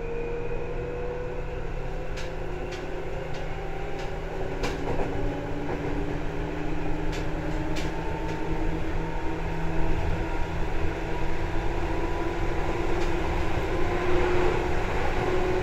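Seibu 2000 series electric train running, heard from inside the car: motor and gear whine rising slowly in pitch as the train gathers speed, over a steady low rumble. A few sharp clicks from the wheels and track are scattered through it.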